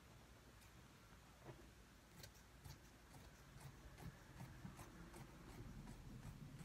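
Scissors cutting through fabric: a few faint, irregular snips and clicks over a low hum.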